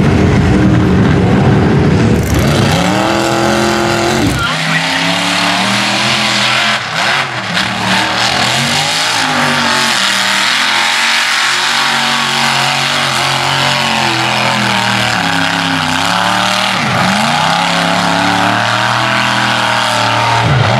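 Mud-truck engines revving hard: first a lifted pickup's engine running heavy and low, rising in pitch about three seconds in, then, from about four seconds in, another mud truck's engine revving up and down again and again as it runs the dirt course.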